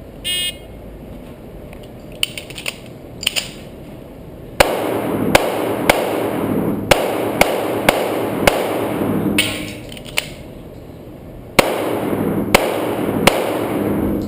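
A shot timer beeps once, then a Taurus PT1911 .45 ACP pistol fires a string of about a dozen shots. The shots start about four and a half seconds in and come in uneven groups with short pauses. A few lighter clicks come before the first shot.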